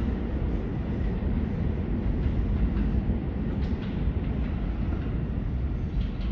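New York City subway train running through a tunnel: a steady low rumble with a few faint clicks.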